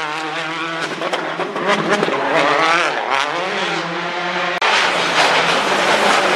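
Rally car engine revving hard, its pitch rising and falling repeatedly through gear changes. About four and a half seconds in, the sound breaks off abruptly and comes back louder.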